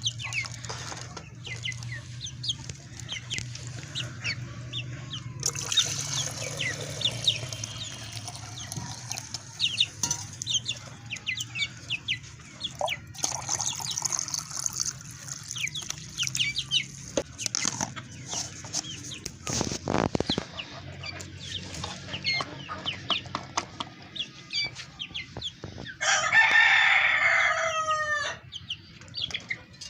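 Chickens clucking among many quick high chirps, over a steady low hum. About 26 s in, a rooster crows once, loudly, for about two and a half seconds, the call falling in pitch at its end.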